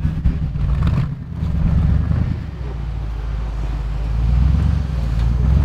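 Off-road rock crawler's engine working hard as the vehicle climbs over boulders, its revs rising and falling.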